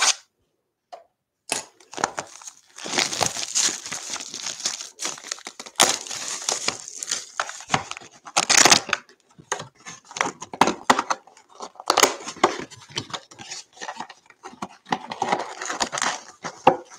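Plastic shrink-wrap crinkling and tearing as it is stripped off a sealed cardboard box of trading cards, with many sharp crackles, starting about a second and a half in. Near the end the cardboard box is handled and opened.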